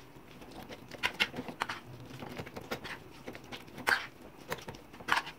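Metal spoon stirring and mashing sticky, softened dates in butter in a frying pan: irregular scrapes and taps of the spoon against the pan.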